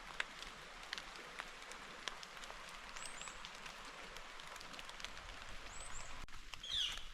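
Light rain falling in woodland: a steady hiss with scattered drop taps. A bird gives short high chirps twice and a louder falling call near the end.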